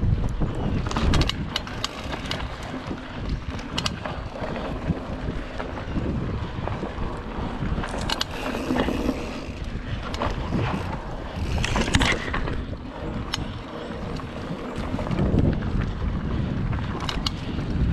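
Mountain bike rolling along a dirt singletrack: a steady rumble of tyres on the trail and wind buffeting the microphone, broken by sharp rattles and knocks as the bike goes over bumps.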